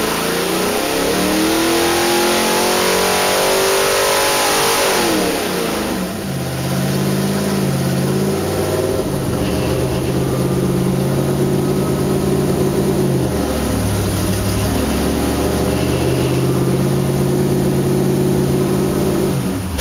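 406 cubic inch small-block Chevrolet V8 (a bored stock-block 400 with a hydraulic roller cam) running on an engine dyno. It climbs in revs under load for about five seconds, drops back sharply, then runs steadily at a lower speed with a brief dip partway through, and falls away at the very end.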